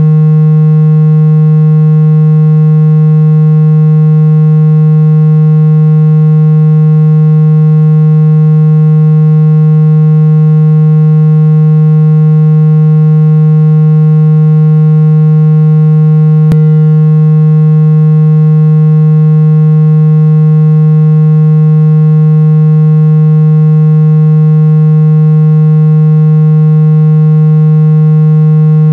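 Steady, loud, low buzzy tone, a synthesized speaker-cleaning signal meant to be played at full volume so that the phone speaker's vibration pushes trapped water out. It holds one unchanging pitch throughout, broken only by one brief click about sixteen seconds in.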